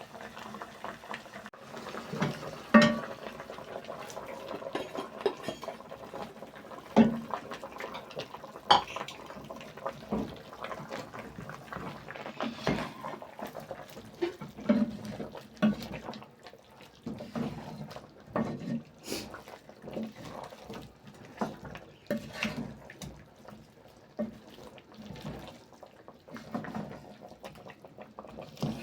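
Kitchen utensils knocking and clinking against pots and dishes in irregular strokes while cooking, the loudest knocks about three, seven and nine seconds in.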